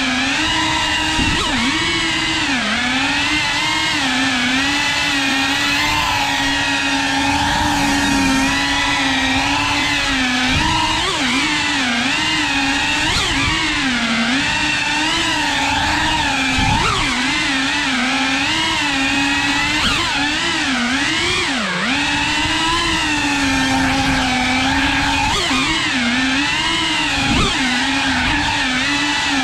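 3.5-inch cinewhoop quadcopter's motors and propellers buzzing, pitch rising and falling continually with the throttle.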